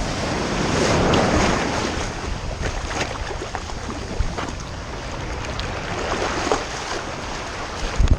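Ocean surf washing onto the beach, swelling about a second in, with wind buffeting the microphone and a few light clicks.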